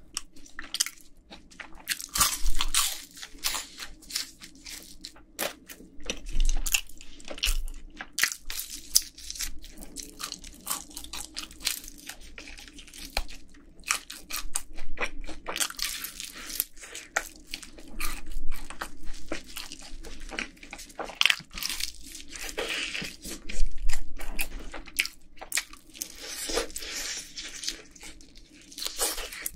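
Close-miked crunching and chewing of yangnyeom fried chicken, a crisp fried coating in sweet-spicy sauce, with irregular crunchy bites and steady chewing.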